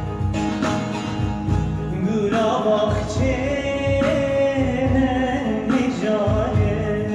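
A song with instrumental backing and a steady beat; a male voice starts singing about two seconds in.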